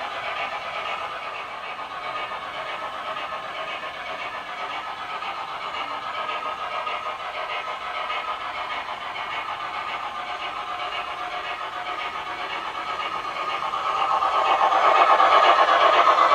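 MTH GS4 4-8-4 HO-scale model steam locomotive running, its Proto-Sound 3 sound system playing steam chuffing through a small onboard speaker. It grows louder over the last few seconds.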